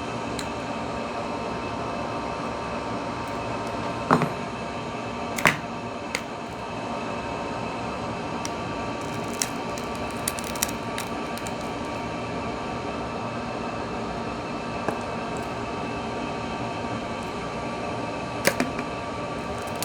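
A steady machine hum, broken by a handful of short sharp clicks as tools pry at the phone's frame during opening.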